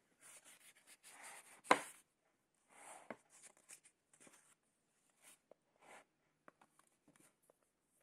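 Hardcover picture book being opened and its paper pages turned: soft page rustles and light handling sounds, with one sharper knock nearly two seconds in.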